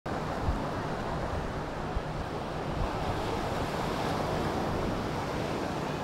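Beach ambience: a steady wash of surf with wind on the microphone, broken by a few brief low bumps in the first three seconds.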